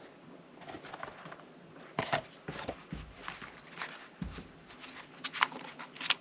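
Hands handling a Blu-ray mediabook and its discs and inserts: scattered plastic-and-paper clicks and rustling, with a couple of soft knocks and one sharper click about five seconds in.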